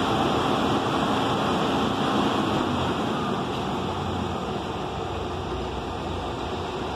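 Steady street traffic noise with vehicle engines running, a low engine rumble growing in the second half.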